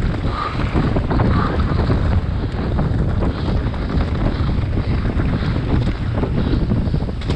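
Wind buffeting the microphone over the constant rattle and knocking of an enduro mountain bike descending a rough trail.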